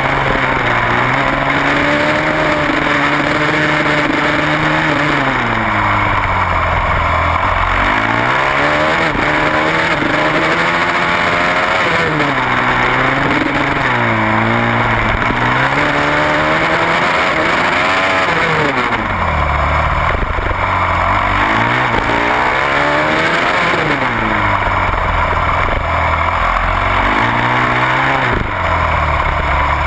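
Supermoto race motorcycle engine heard onboard, revving hard and climbing in pitch through the gears, then dropping off for each corner, again and again every few seconds, with a steady rush of wind over it.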